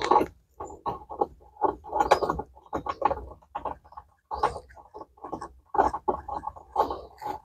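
Irregular small clicks, taps and rustles of hands fitting a small part into a car's dashboard, coming in short uneven bursts.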